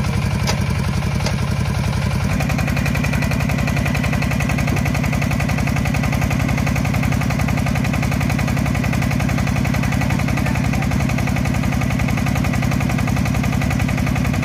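A power tiller's 32-horsepower diesel engine running steadily with a fast, even knock. About two seconds in, its note shifts as it drives the hydraulic tipper that raises the soil-loaded trailer tray.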